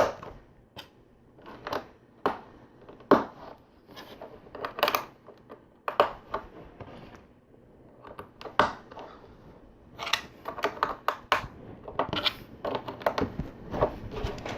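Plastic LEGO pieces being handled and pressed together: scattered sharp clicks and small clatters, coming thicker near the end.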